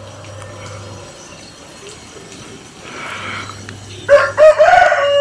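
Quiet outdoor background, then about four seconds in a rooster crows loudly, its call rising briefly and then holding a steady pitch.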